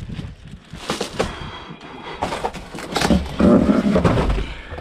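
Knocks and clatter of boxes being handled, then about three and a half seconds in a loud low rumble lasting about a second.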